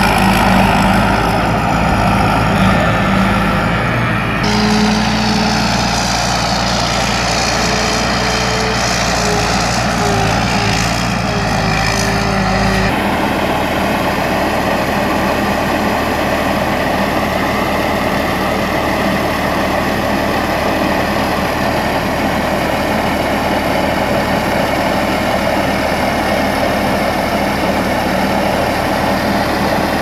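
Crawler rice combine harvester's diesel engine and threshing machinery running steadily as it moves through the field. About 13 seconds in the sound changes abruptly, and the combine keeps running with its unloading auger emptying grain into a truck.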